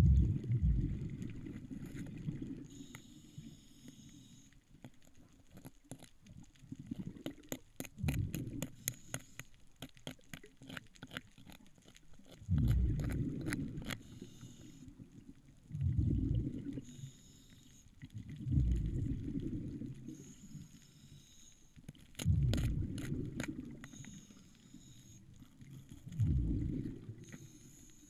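Underwater breathing through a diving regulator: low rumbling bursts of exhaled bubbles every few seconds, each lasting one to two seconds, with a short hiss between them as air is drawn in. Scattered sharp clicks run through it all.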